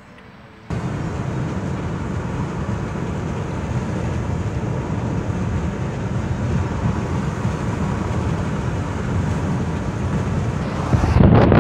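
Road and engine noise inside a moving car: a steady low rumble that starts suddenly about a second in. Near the end it turns into louder, choppy wind buffeting on the microphone.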